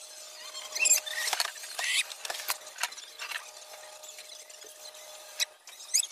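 Short high-pitched squeaks and scrapes with a few clicks as an aluminum slide-up window frame with glass is worked by hand, the squeaks bunched about one to two seconds in, a few more scattered after, over a faint steady hum.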